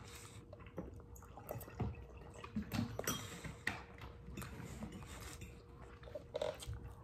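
Quiet eating sounds: scattered light clicks and taps of a utensil on a plate, with small mouth and chewing noises, over a faint steady hum.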